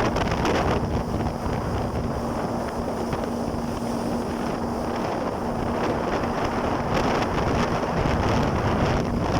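Jet ski engine running steadily at sea, with heavy wind buffeting the microphone and water rushing past.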